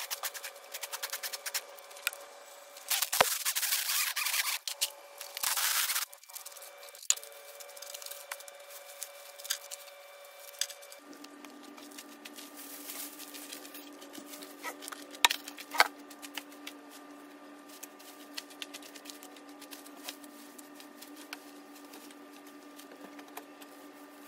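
Sped-up sound of clearing overgrown weeds and vines by hand: rustling foliage with many quick snapping and chopping clicks, and two loud bursts of rustling about three and five seconds in. A steady hum sits underneath and drops in pitch about eleven seconds in.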